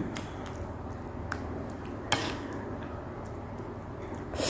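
A few light clicks of a metal spoon against a ceramic plate as rice is scooped, the sharpest about two seconds in, over faint room noise; a short hiss starts right at the end.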